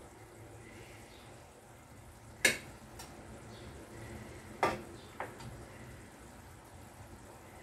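Two loud sharp knocks about two seconds apart, the second followed half a second later by a softer one, over a low steady hiss.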